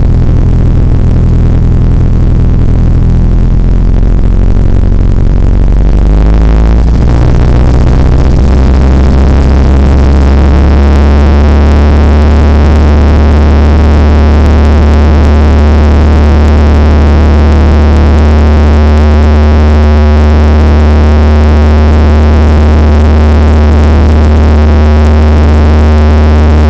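Light airplane's engine and propeller heard from inside the cabin during the takeoff run: a very loud, steady drone whose pitch changes about seven seconds in as power comes up, then holds constant at takeoff power.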